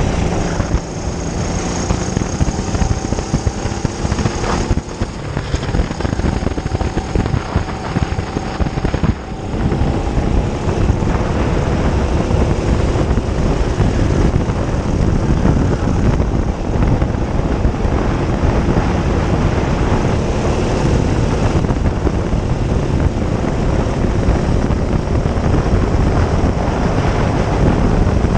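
Hire kart engine running hard, heard from on board the kart, its note rising and falling with the throttle and dipping briefly about 1, 5 and 9 seconds in, mixed with a continuous rush of noise.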